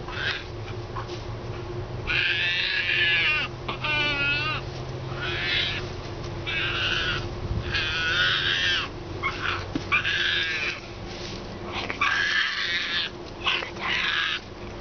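Frightened striped hyena pup giving a series of high-pitched calls, about eight short bouts, one of them wavering, as a defensive reaction to a person she distrusts.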